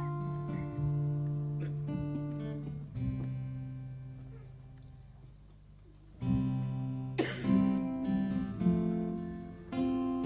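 Acoustic guitar strumming slow, ringing chords; the chords die away to quiet about halfway through before strumming resumes about six seconds in.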